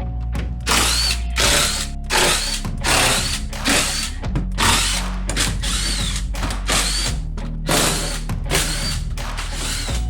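Repeated short bursts of a power tool, like a drill or driver working fasteners loose, about a dozen in a row, over background music with a steady bass.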